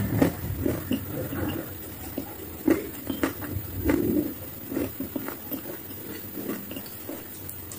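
Close mouth sounds of someone chewing wet chalk with the mouth closed: soft, irregular wet clicks and smacks, a few a second, thinning out toward the end.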